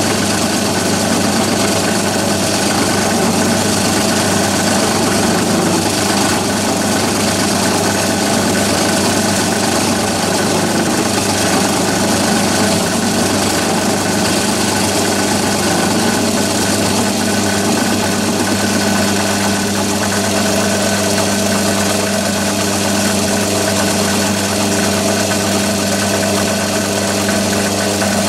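Myford lathe running with a three-flute end mill carrying blue nano-coated carbide inserts, milling a metal bar clamped to the cross-slide: a steady motor and drive hum under the continuous hiss and chatter of the cut.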